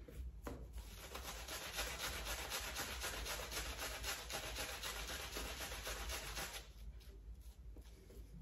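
Rubab Men Bomber shaving brush swirling shaving-soap lather over the cheek and neck: a fast, even, wet scrubbing of bristles on skin, many strokes a second, easing to a much softer rubbing near the end.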